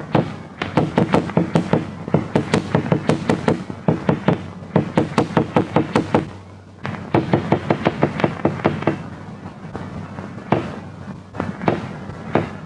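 Hammer knocking on a table top in quick runs of several blows a second, broken by short pauses: a sound stimulus beside an isolated dog's head, to show that the head reacts to sound.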